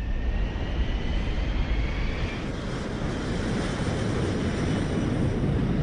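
Jet airliner taking off: a steady heavy engine rumble with a faint rising whine in the first couple of seconds.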